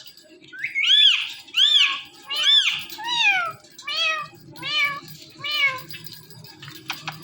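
Ringneck parrot mimicking a cat's meow: a series of about seven high, arched 'meow' calls, each rising then falling in pitch, under a second apart and growing fainter toward the end.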